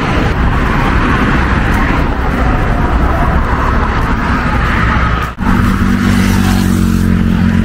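Street traffic noise from passing cars, a dense steady rush. About five seconds in the sound cuts out for a moment, and after it a steady engine hum from a passing vehicle comes through.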